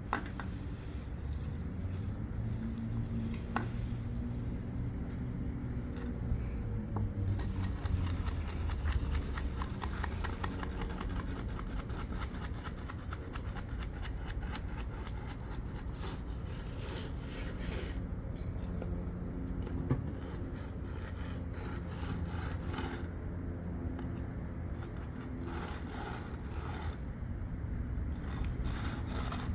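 Hand finishing tools scraping and rubbing over fresh concrete, in long runs of quick strokes, over a steady low hum.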